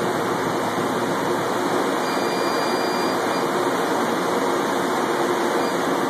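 Laser engraving machine running, its exhaust and air-assist blowers making a steady, unchanging rush of air. A faint thin high whine comes in about two seconds in and lasts about a second.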